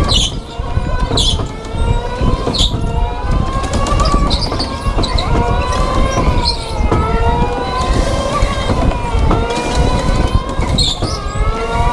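Electric go-kart motors whining, several overlapping whines rising and falling in pitch as the karts speed up and slow, over a steady rumble on the kart-mounted camera. Short high squeals come every second or so.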